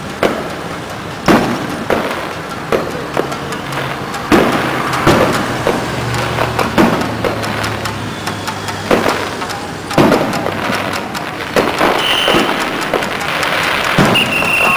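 Aerial fireworks display: about a dozen loud shell bursts at irregular intervals, with crackling between them. Two short high-pitched tones sound near the end.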